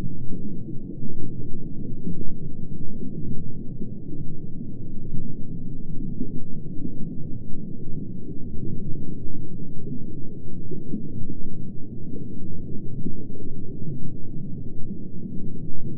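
Steady, muffled low rumble of water, as picked up by an underwater camera in its housing.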